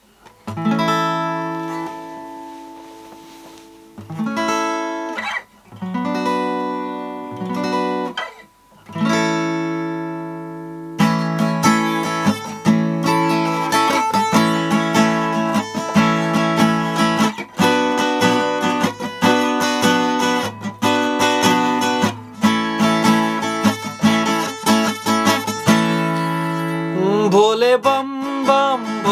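Acoustic guitar: a few single strummed chords, each left to ring out and fade, then from about eleven seconds in steady rhythmic strumming.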